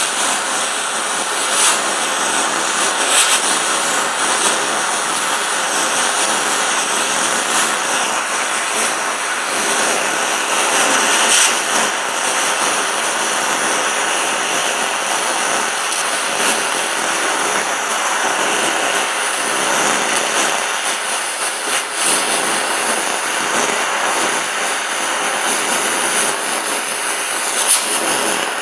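TIG welding arc on aluminum, run DC electrode positive from a Miller Dynasty 200 DX, a steady hiss broken by a few sharp pops. It is a very hot arc on a balled tungsten.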